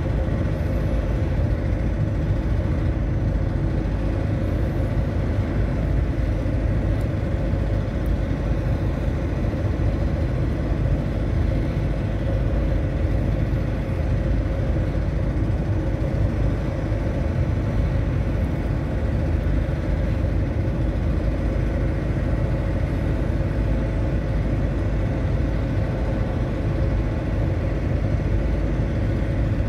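Steady, unbroken low engine rumble with a faint constant hum above it.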